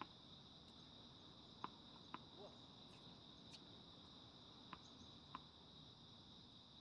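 Faint, steady high-pitched chirring of insects, with a few faint clicks scattered through it.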